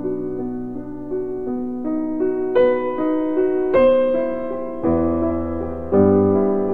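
Background piano music: a slow melody over held chords, with low bass notes coming in about five seconds in.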